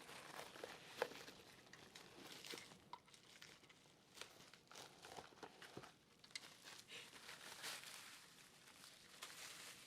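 Faint crinkling and rustling of packaging being handled and unwrapped, with scattered small clicks.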